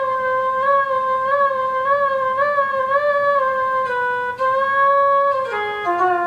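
Roland SC-55 MIDI sound module's flute voice, played from an Altura MIDI theremin through a speaker. One long held note wavers gently up and down as the theremin's pitch bend is moved. Near the end it breaks into a quick run of stepped notes falling in pitch.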